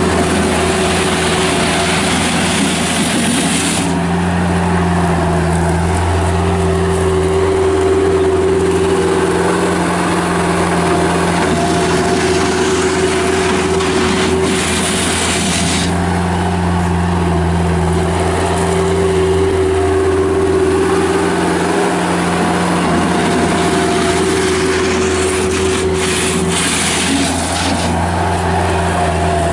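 Bobcat 751 skid steer loader's Kubota diesel engine running steadily, with a rushing hiss that comes in briefly three times: at the start, about halfway and near the end.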